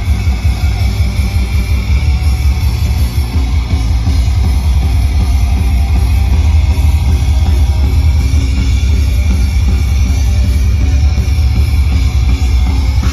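Live black metal band playing loud: distorted guitars over fast, dense drumming, heard from within the crowd.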